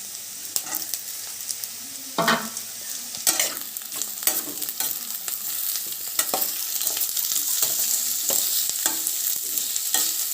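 Onion and capsicum sizzling in hot oil in a pan while a spatula stirs them, with repeated scrapes and taps of the spatula against the pan. The sizzle grows louder about halfway through.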